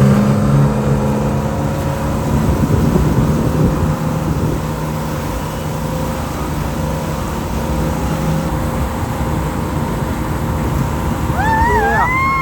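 Boat engine speeding up and then running steadily under load over a steady rush of water and wind noise. Near the end there is a high, wavering call that rises and falls.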